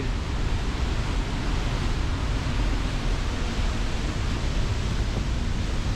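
Steady roar of a large waterfall and river in spate after heavy rain, an unbroken rushing noise heaviest in the low end.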